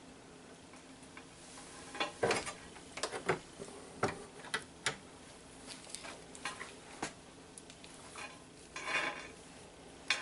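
Irregular light metallic clicks and clinks as steel wire rope with a thimble and ferrule is handled at a hand swaging tool clamped in a vise: about a dozen sharp clicks over a few seconds, then a short rustle near the end.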